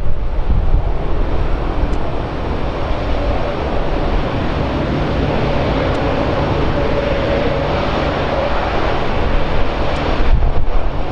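Jet airliner's engines running at takeoff power: a steady rumble with a whine that grows louder in the middle, over wind buffeting the microphone.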